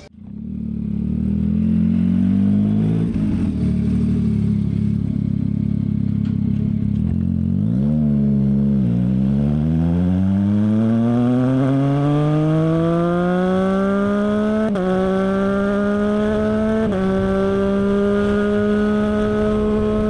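Yamaha MT-09's three-cylinder engine through a Revoc SP carbon full exhaust system, heard from the rider's seat. It holds a steady note at first, dips and wavers in pitch about eight seconds in, then rises in a long pull under acceleration. Two upshifts follow, each heard as a short drop in pitch, and it then settles to a steady high cruise.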